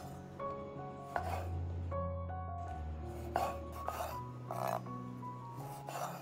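Kitchen knife slicing cherry tomatoes in half on a wooden cutting board: about five crisp cuts, each a quick slice through the skin ending in a tap of the blade on the wood, over soft background music.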